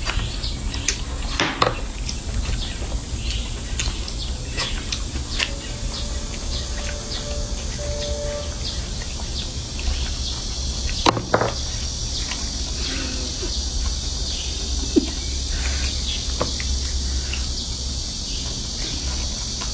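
Insects chirring in a steady high hiss that grows louder about halfway through, with scattered small clicks and taps from a baby monkey handling and biting longans over a glass mug.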